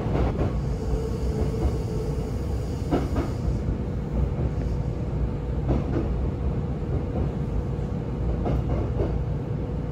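Cabin sound of a Kintetsu 6400 series electric train running through a station: steady low rumble of the wheels on the rails with a steady hum, and a few short clacks from the wheels over rail joints.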